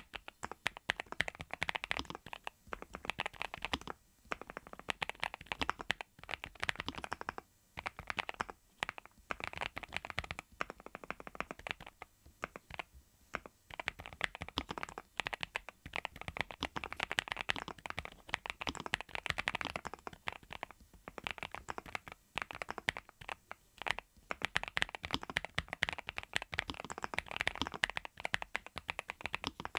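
Fast typing on a NuPhy Halo75 V2 mechanical keyboard with Raspberry switches: a dense run of key clacks in bursts, with a few short pauses between runs.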